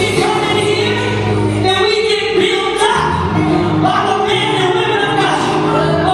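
Gospel music: voices singing over steady held accompaniment chords.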